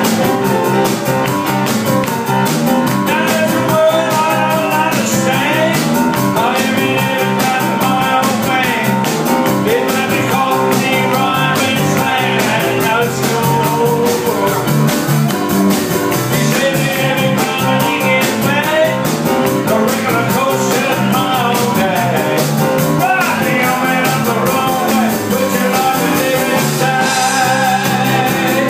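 A live rock-and-roll band playing at full tilt: electric bass, Korg keyboard and drums driving a steady beat.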